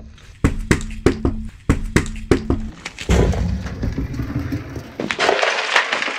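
Car tyre rolling over and crushing an aluminium drink can: a quick run of knocks, about three or four a second, then from about three seconds in a rough crunching noise that turns into a steady hiss near the end.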